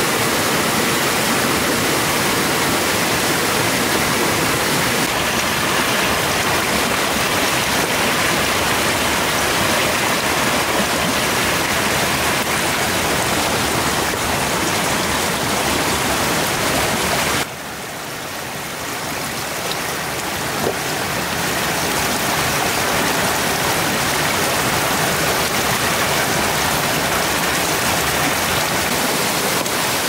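Steady rushing noise, even across low and high pitches. A little past halfway it drops suddenly, then builds back up over a few seconds.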